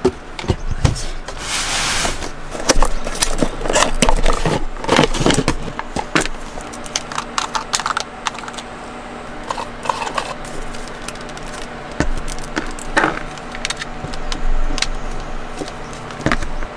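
Plastic camping gear being handled: an irregular string of clicks, knocks and scrapes as a cooler is closed and a small plastic bottle is fitted into a plastic mosquito-repellent device. A brief rustle, like packaging, comes about two seconds in.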